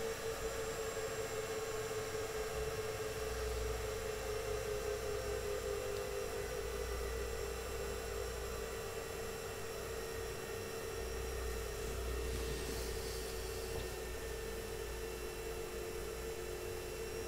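Dell PowerEdge R210 II 1U rack server's cooling fans running during start-up and the power-on self-test: a steady whir with a hum whose pitch sinks slowly as the fans ease down from full speed.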